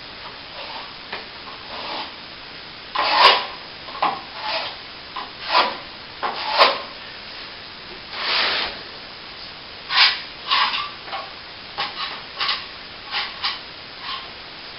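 A steel plastering blade scraped and smoothed across a patched plaster wall in a series of short, irregular strokes, with one longer stroke about eight seconds in.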